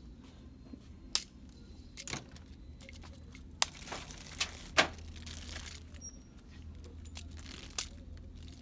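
Scattered sharp clicks and taps, about half a dozen, from plastic toys and their packaging being handled, over a low steady background hum.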